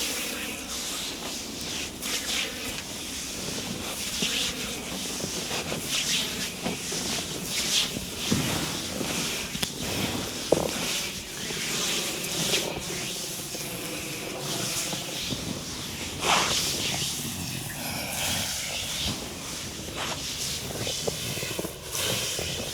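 Hands rubbing and sliding over skin in a body massage, a hissing friction sound made of repeated strokes at an uneven pace.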